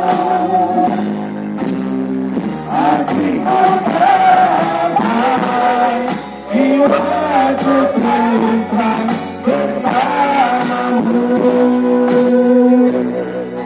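A woman singing a song through a microphone and PA system over amplified backing music.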